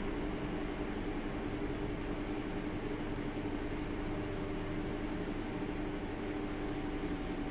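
A steady mechanical hum over hiss, holding a low tone.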